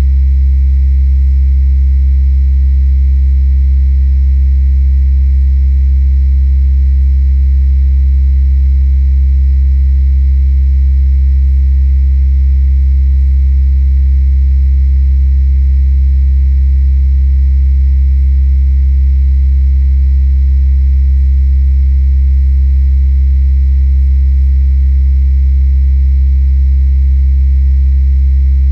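Steady, deep rumbling hum, heaviest in the bass, with fainter steady tones above it and no change in level; the uploader attributes it to the electric grid's power lines.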